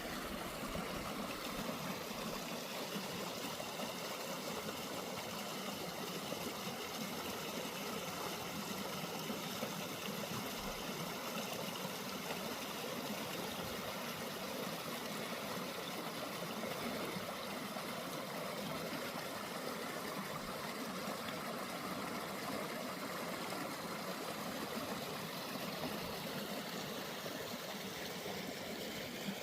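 Tumalo Creek running, a steady even rush of flowing water with no change in level.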